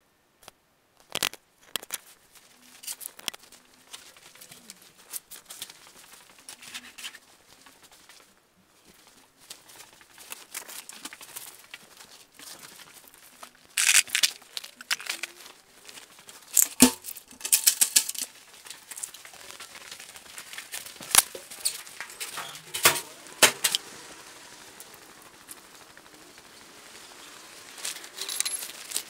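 Rustling of clothing and handling noise, broken by scattered sharp clicks and knocks.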